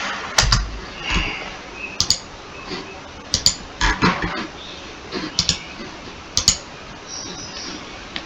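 Scattered clicks of a computer keyboard and mouse, often in quick pairs, with short pauses between.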